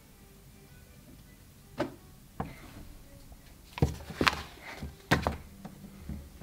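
A few separate knocks and thuds, the loudest coming in a quick cluster about four seconds in and again about a second later.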